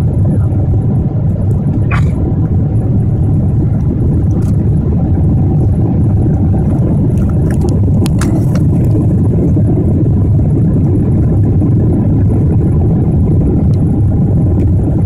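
Steady low rumble inside the cabin of a Boeing 747 in flight: the noise of its four jet engines and the air rushing past the fuselage, with a few faint clicks.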